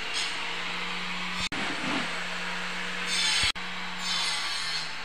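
A steady machine hum runs throughout, with intermittent scraping, rasping strokes of a tool on wood now and then. The sound cuts out for an instant twice.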